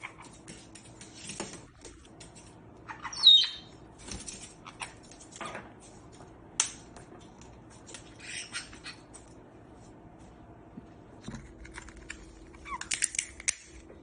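Pet parrots eating nuts: scattered sharp clicks and cracks of beaks working at nutshells, one loud short squawk about three seconds in, and a quick run of clicks near the end.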